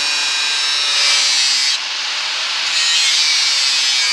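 Angle grinder with a thin cutting disc cutting through steel plate: a steady high whine over a harsh hiss of disc on metal. The sound dips for a moment a little under two seconds in, then carries on harsher.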